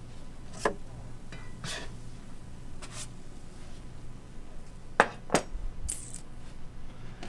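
Scattered clinks and knocks of kitchen utensils against pans and dishes, about six sharp strikes with the loudest pair about five seconds in, over a steady low hum.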